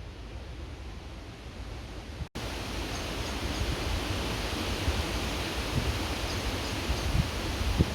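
Creek water running, a steady rushing noise. A little over two seconds in it cuts abruptly to a louder, brighter stretch of flowing water. Low gusts of wind buffet the microphone near the end.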